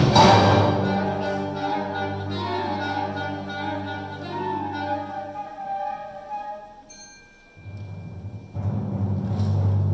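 High school wind ensemble of woodwinds and brass playing live: a loud full chord at the start dies away through held notes to a soft moment with one high sustained note about seven seconds in, then low instruments swell back in loudly near the end.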